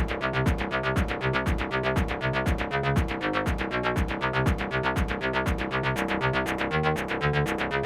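Electronic background score with a fast, steady techno-style beat and a pulsing bass line.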